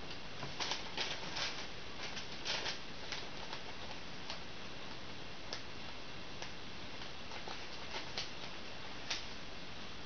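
A thin paper till receipt rustling and crinkling as it is handled, with short crackles bunched in the first few seconds and a few scattered ones later, over a steady hiss.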